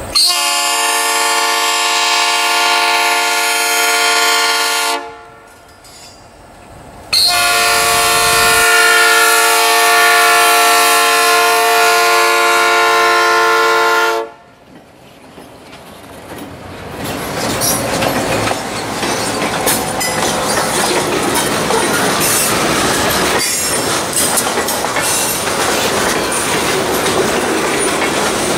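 Diesel locomotive horn on a Norfolk Southern EMD GP38-2 sounds two long blasts, the first about five seconds and the second about seven, with a short gap between. The locomotive and its freight cars then roll past, the wheels clicking over the rail joints.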